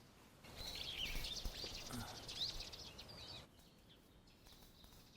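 Faint, high-pitched animal chirps and squeaks that glide up and down, stopping about three and a half seconds in.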